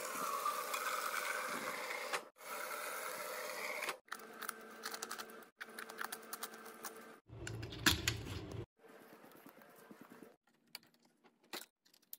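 Water running from a refrigerator door dispenser into a plastic bottle, its pitch rising as the bottle fills. This is followed by plastic clicks and rattles as a sipper-tube cap is screwed on and the bottle is hooked onto a wire cage.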